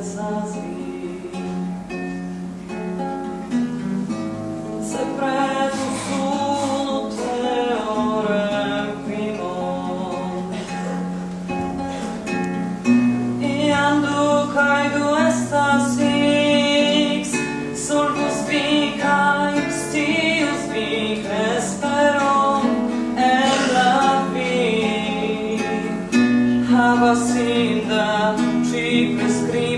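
A woman singing a song, accompanying herself on an acoustic guitar.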